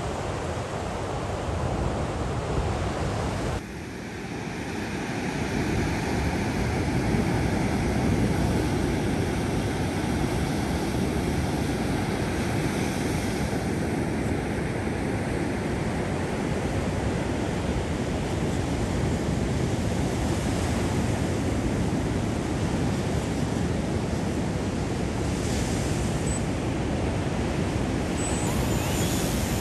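Ocean surf breaking and washing up a sandy beach, a steady rush of waves, with a brief dip and change in the sound a few seconds in.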